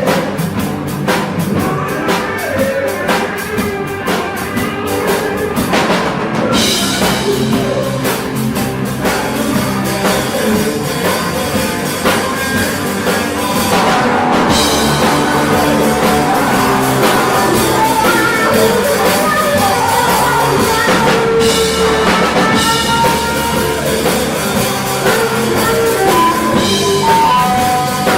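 Live rock band playing a blues-rock song: a drum kit keeping a steady beat under electric guitar and bass.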